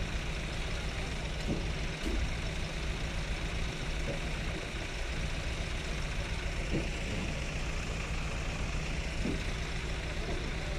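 Vehicle engine idling steadily, a continuous low hum, with a few faint short sounds over it.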